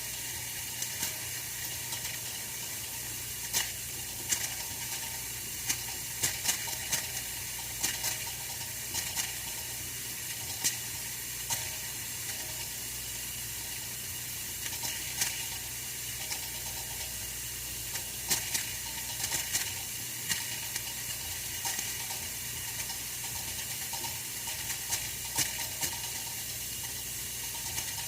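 Oil-filled radiator heater running: a steady hiss over a low hum, with small irregular ticks and crackles scattered through it, a few a second at the busiest.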